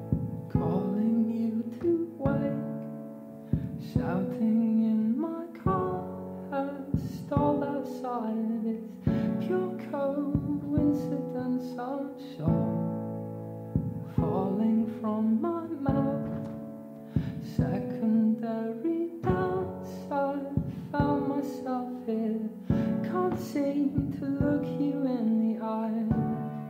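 Slow song with plucked string notes struck one after another and a sung vocal line.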